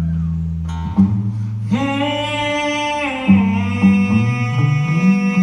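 Live country-rock band playing on electric and acoustic guitars with bass, and a voice singing a long held note about two seconds in.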